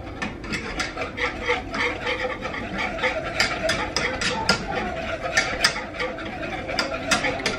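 Wire whisk beating enchilada sauce in a metal saucepan, its tines scraping and clicking against the pan about three times a second.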